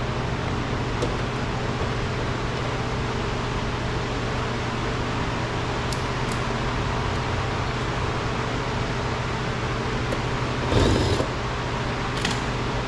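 Steady mechanical hum with a few light clicks, and a short knock about eleven seconds in.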